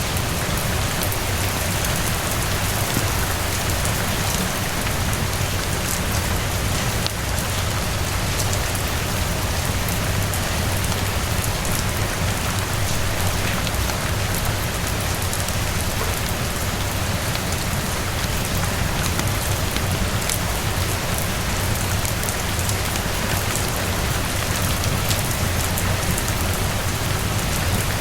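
Steady rain falling on a surface, even and unbroken, with a steady low rumble underneath and scattered sharp clicks.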